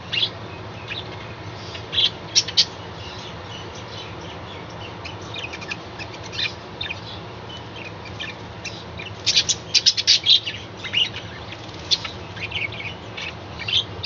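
Budgerigars chirping in short, sharp calls, scattered at first and then a quick flurry of chirps about nine to ten seconds in, over a steady low background noise.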